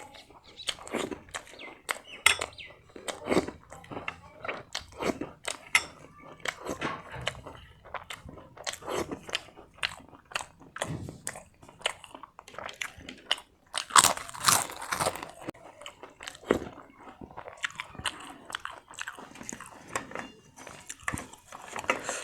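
A person biting and chewing crunchy food close to the microphone: irregular crunches and mouth clicks, with a louder stretch of crunching about fourteen seconds in.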